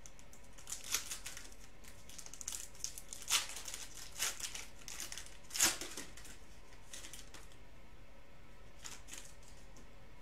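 Plastic wrappers of basketball trading card packs being torn open and crinkled by hand: irregular crackles and rips, loudest just past halfway, thinning out over the last few seconds.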